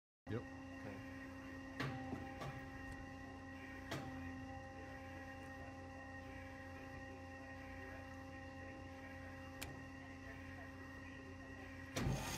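Steady electrical hum of an idling Amada HA-500 horizontal band saw, with a few sharp clicks from its control-panel buttons. Near the end a button press is followed by a knock, and the machine's noise grows louder and broader.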